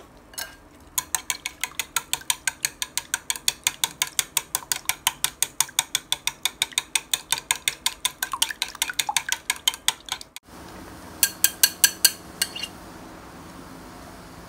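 Chopsticks beating eggs in a ceramic bowl, clicking against the bowl about six times a second. About ten seconds in this stops and gives way to a faint steady hiss of the egg mixture frying in a pan, broken by a short run of clicks.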